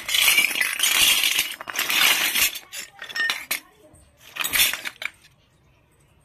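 Clinking and rustling of small toy pieces being handled, in several bursts over about five seconds, then stopping.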